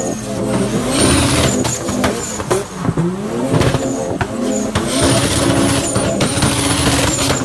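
BMW E30 drifting: its engine revs up and down hard while the tyres squeal, with long high screeches about a second in and again in the second half.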